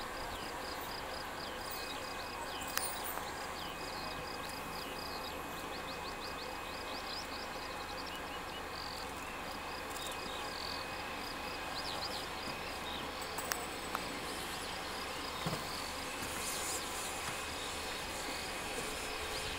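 Insects chirping in rapid, evenly repeating pulses, over the steady hum of an Airbus A321neo's jet engines at low power as it taxis.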